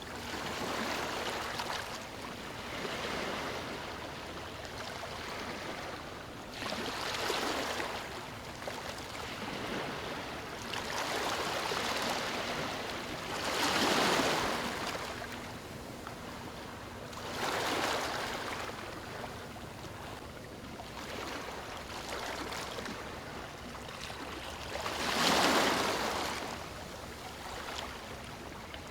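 Moving water rushing and splashing, swelling and easing in irregular surges every few seconds, with the biggest surges about halfway through and near the end.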